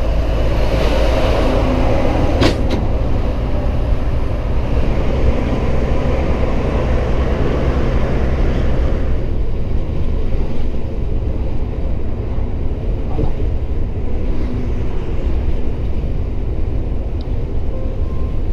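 Inside the cab of a DAF XF95 truck under way on the highway: its six-cylinder diesel drones steadily with road and tyre noise, and there is one sharp click about two and a half seconds in. The hiss of road and wind noise eases about nine seconds in, leaving mainly the low engine drone.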